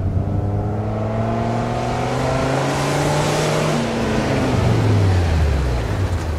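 Ford Super Duty's V10 engine running through a new Flowmaster Hushpower muffler and Y-pipe, accelerating. The revs climb gradually, then fall off near the end.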